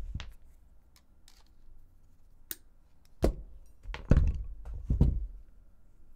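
Several dull thunks and knocks from parts and wire being handled and set down on a work surface, with one sharp click about two and a half seconds in and the heaviest knocks in the second half.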